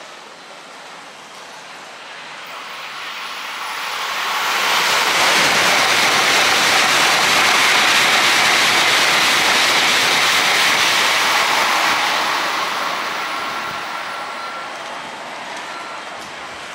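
N700-series Tokaido Shinkansen bullet train passing through the station at high speed: a rushing roar that builds over a few seconds, stays loud for about seven seconds, then fades away.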